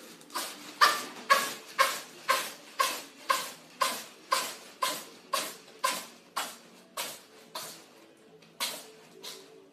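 A cat sneezing over and over in a long rapid fit, about eighteen short sharp sneezes at a steady pace of roughly two a second.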